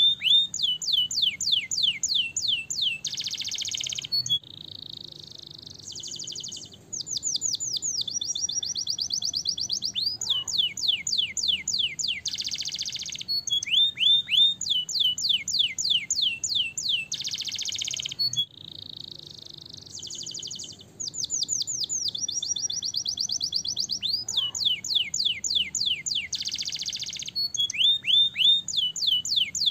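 Domestic canary singing a long, continuous song: runs of quick falling whistled notes alternating with fast trills and buzzy rolled phrases, with hardly a pause.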